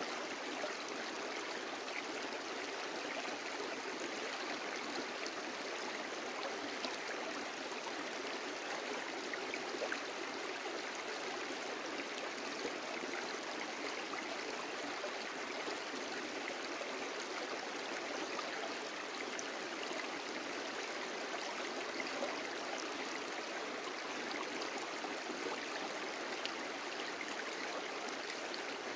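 A brook flowing steadily: a continuous rush and babble of running water.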